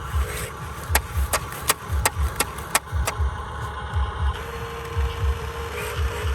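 Background music with a regular low thumping beat. A run of sharp clicks comes in the middle, and a steady whine sounds in the second half.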